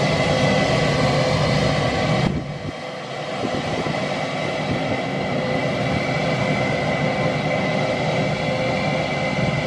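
Airbus A319 jet engines running at taxi power: a steady roar with a high whine. The sound drops sharply a little over two seconds in, losing its low rumble, then builds back up.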